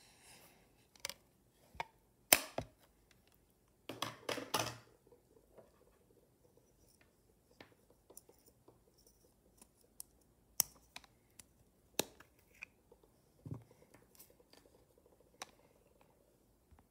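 Small plastic glitter pots and cups being handled, opened and tapped: scattered sharp plastic clicks, the loudest about two seconds in, with a quick run of taps around four seconds in.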